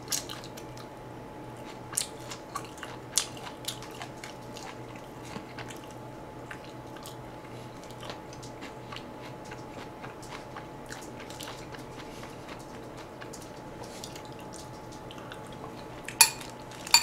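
Quiet chewing of braised short ribs, with small wet mouth clicks throughout and a few sharper clicks of cutlery or dishes about two and three seconds in and near the end. A faint steady hum lies underneath.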